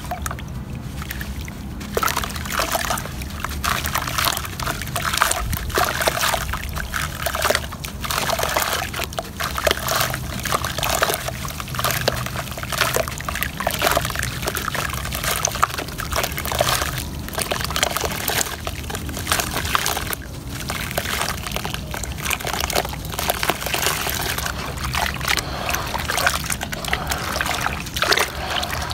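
Wet sand-and-cement mud crumbling under hands into a basin of water: continuous gritty crackling with sloshing and trickling water. Near the end the hands rub and swish through the muddy water.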